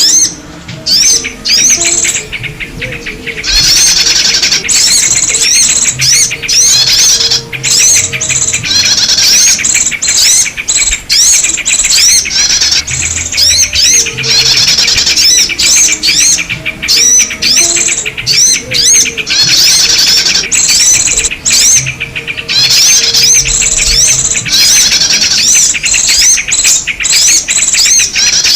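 Bird-lure recording of a dense chorus of small birds: many overlapping sharp chirps and twittering trills, nearly without pause. It is a lure call used to draw in yellow-vented bulbuls and other small birds.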